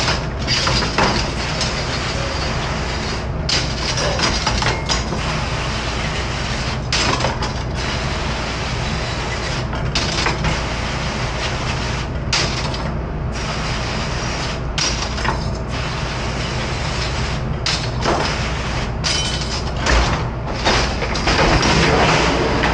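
Metal tongs and utensils clinking and clattering as they are handled and dropped into a plastic dish rack, over a steady machinery hum.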